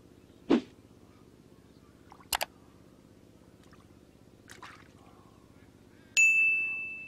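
Short splashes in shallow muddy water, a dull plop about half a second in and a sharper splash a couple of seconds later. About six seconds in, a bright notification chime rings out and fades over about a second.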